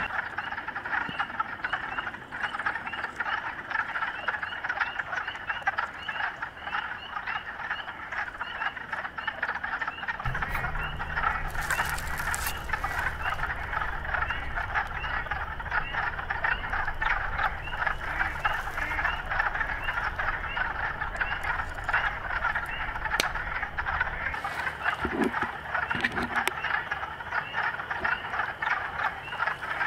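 Wood frog chorus: many frogs calling at once in a dense, continuous mass of short, overlapping clucking calls.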